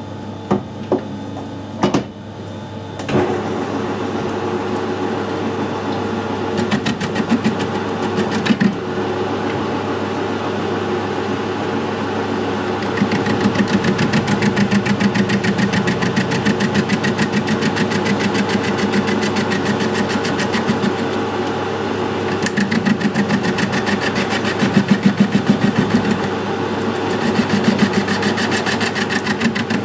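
Metal lathe running, its carbide-insert tool facing the end of a welded square steel tube held in a four-jaw chuck, with a fast, even ticking through the cut. A few clicks come in the first couple of seconds, and the machine noise rises about three seconds in.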